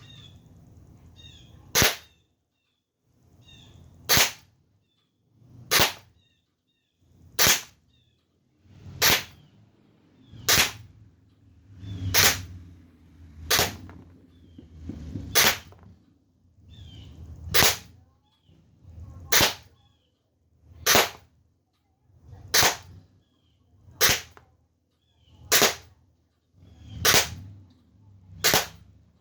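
Sig Sauer M17 .177 CO2 blowback pellet pistol firing steady single shots, a sharp crack about every one and a half seconds, some seventeen in all.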